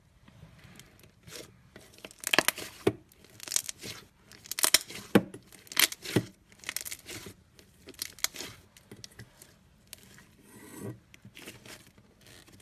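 Slime being squeezed and pulled apart by hand: a run of irregular sticky crackles, pops and tearing sounds, loudest in the middle and thinning out towards the end.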